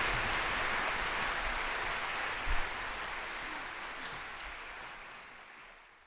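Audience applauding after the final chord, a dense even clapping that fades out toward the end. A short low thump about two and a half seconds in.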